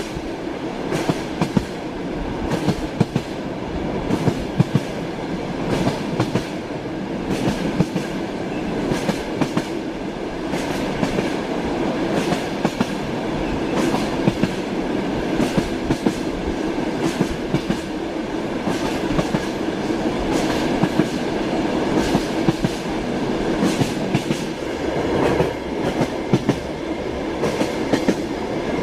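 Train wheels clattering over rail joints at running speed, with a steady rolling rumble under many sharp clicks.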